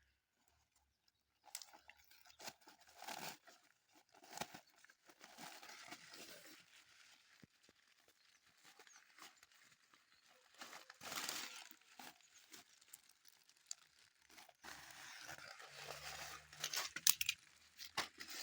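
Packaging rustling and crinkling in irregular, faint bursts as tripod parts are unwrapped, with a few sharp clicks near the end.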